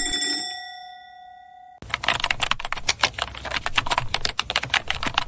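A ringing chime tone fades out, and then, about two seconds in, fast typing on a computer keyboard begins and continues, a rapid clatter of key clicks.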